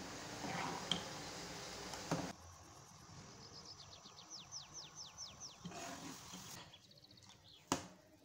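A metal ladle is stirred through milk in an aluminium pan, with a steady hiss and a couple of clinks. It stops suddenly about two seconds in. After that comes a quieter stretch with a rapid run of about ten high, falling chirps and a single sharp click near the end.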